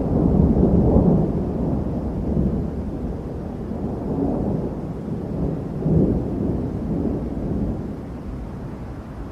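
A deep, noisy rumble that starts suddenly, swells a couple of times and slowly dies away.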